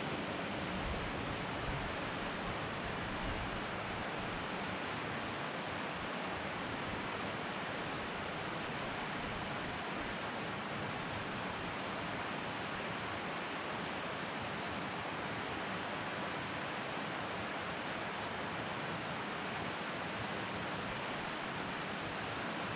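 Steady, even rushing noise at a constant level, with no distinct events in it.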